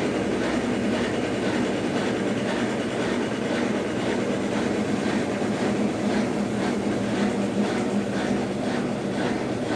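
Consul Facilite 10 kg top-loading washing machine running through its rinse and spin cycle: a steady mechanical hum with a faint rhythmic beat about twice a second.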